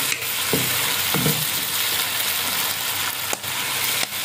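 Chopped vegetables and egg sizzling in a hot nonstick wok with a steady frying hiss, stirred by a wooden spatula, just after soy sauce and chili sauce have gone in.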